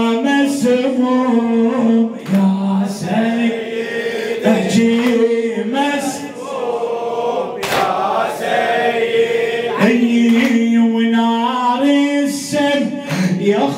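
Men's voices chanting an Iraqi Shia mourning lament (noha) in long, drawn-out sung notes, with a few sharp hits.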